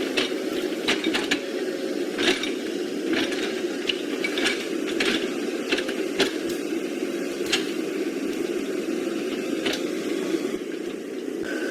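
Small electric motor and plastic gearbox of a radio-controlled model vehicle running steadily, with irregular clicks and knocks from its moving parts.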